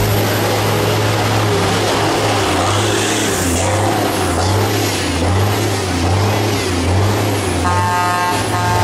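Truck engine running with a steady, wavering low drone and a noisy hiss over it. Near the end, a horn-like tone sounds twice, briefly.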